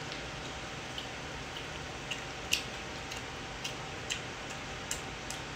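Quiet room with a steady faint hiss and about ten small, sharp clicks and ticks scattered irregularly, the loudest about two and a half seconds in.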